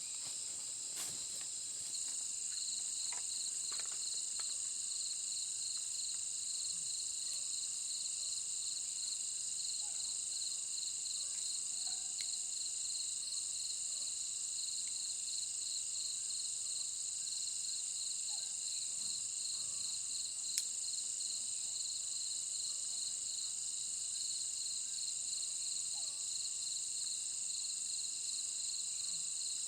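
Insects chirring steadily in several overlapping high-pitched songs, one of them pulsing in a fast, even rhythm. The chorus grows a little louder about two seconds in.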